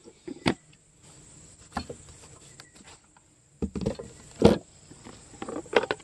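A round plastic rapid bee feeder and its lid being handled and set on a wooden hive inner cover: scattered knocks and light rattles, the loudest about four and a half seconds in, over a steady high-pitched tone.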